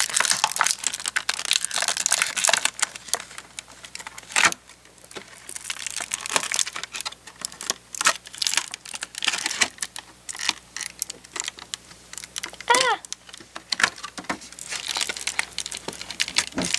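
Thin clear plastic packaging crinkling and crackling as hands pull small toy accessories out of it, with scattered sharp clicks of the plastic.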